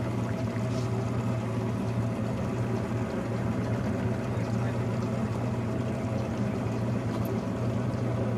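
Boat engine running steadily at one even pitch.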